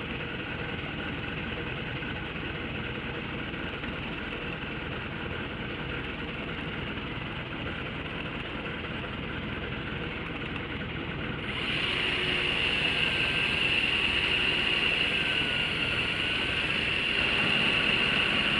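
Boat engine idling with a steady hum. About two-thirds of the way in, a louder, high steady whine joins it and holds: the motor of an electric deep-drop reel winding in line after a fish has hit.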